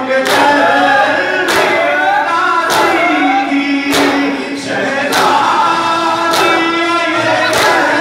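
Group of men chanting a noha, a Shia mourning lament, in unison. Crowd chest-beating (matam) lands together in time with the chant about once every 1.2 seconds, seven strikes in all.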